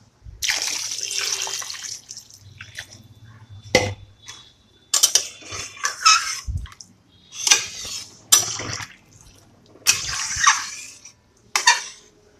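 Water being poured into a metal pot of vegetable curry, splashing for about a second and a half, then a run of shorter sloshes and clinks as a metal spatula stirs the liquid and knocks against the pot.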